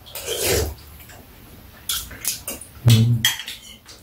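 Two people eating from ceramic bowls with metal spoons: a short noisy mouth sound about half a second in, a few light clinks of spoons on bowls around two seconds, and a brief low vocal grunt about three seconds in.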